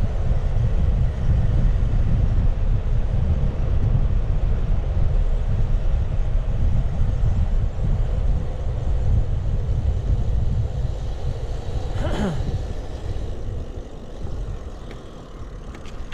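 Wind buffeting the microphone with tyre rumble from a road bicycle riding over a bumpy trail, a loud low rumble that eases off about thirteen seconds in. A short falling squeal about twelve seconds in.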